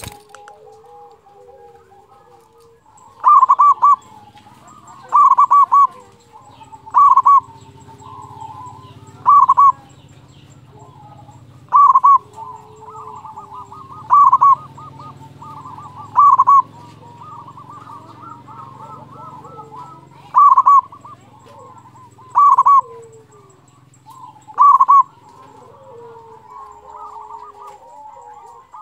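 Zebra dove (perkutut) singing its staccato cooing phrase: about ten loud, short calls, one every two seconds or so, starting a few seconds in. Softer calls of other birds run underneath.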